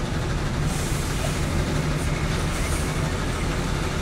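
Overland truck's engine running with a steady low rumble, heard from inside the truck in slow city traffic. Brief faint hisses come about a second in and again a little past halfway.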